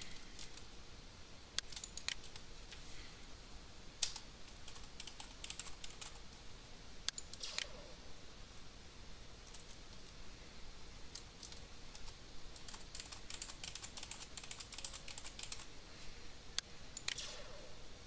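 Computer keyboard being typed on: runs of quick key clicks separated by short pauses, with the busiest stretch in the last third.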